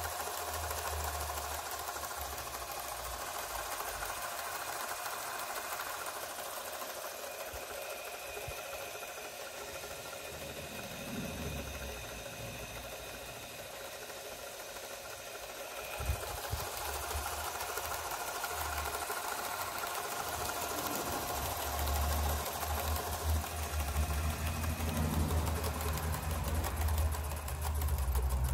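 Universal electric motor running steadily under autotransformer speed control, turning a railway tachogenerator: a continuous motor whine with a mechanical hum.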